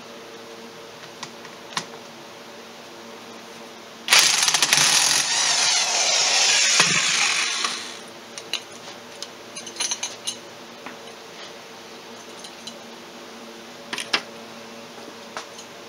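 Electric impact wrench running for about four seconds on a flywheel puller bolt, driving the puller that pulls the flywheel off a Polaris Sportsman 500 engine. A few short metallic clinks follow as the parts are handled.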